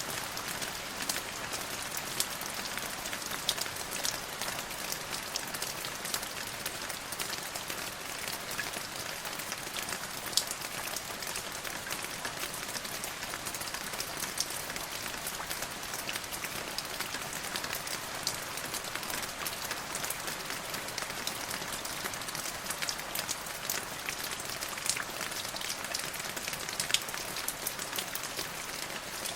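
Steady rain falling on a hard surface, an even hiss with many small, sharp drop ticks scattered through it.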